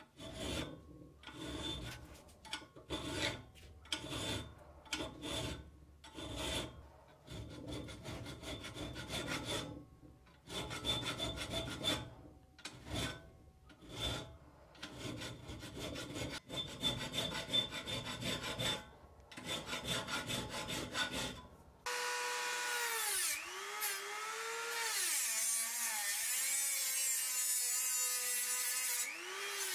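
Hand file rasping back and forth across the edge of a steel knife tang clamped in a vise, in uneven strokes roughly one a second with short pauses. About 22 seconds in, a handheld rotary tool starts with a high whine whose pitch sags briefly each time its small abrasive wheel is pressed onto the steel.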